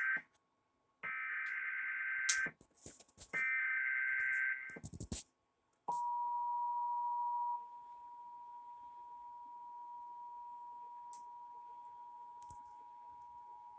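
Emergency Alert System tones: the last of one SAME header data burst and then two more, each a warbling digital burst of about a second and a half, with a sharp click in the second. About six seconds in, the steady two-tone EAS attention signal starts. It drops in level after nearly two seconds and then holds.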